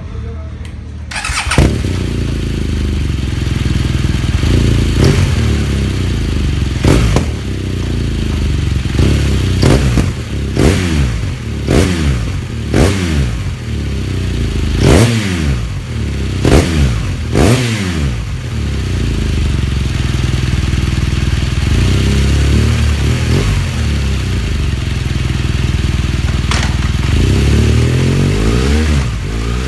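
BMW R1200GS boxer-twin engine with an aftermarket Akrapovic exhaust catching about a second and a half in. It is then blipped through a dozen or so quick revs, each rising and falling. After that it idles steadily, with a few more revs near the end.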